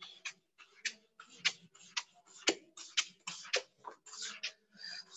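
Whiteboard duster scrubbing across a whiteboard in quick, irregular strokes, about two or three a second.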